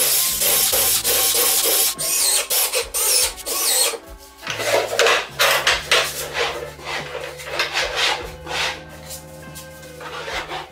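Cordless drill-driver running screws into a pine board, loud for the first four seconds or so. Then the wooden cabinet on its caster base is pushed and shifted, making a quick series of scraping rubs.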